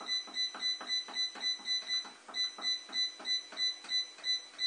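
Bread machine control panel beeping with each press of a button, a short high beep about four times a second with a click under each and a brief pause just after two seconds in, as the delay timer is stepped up to finish the bread six hours later.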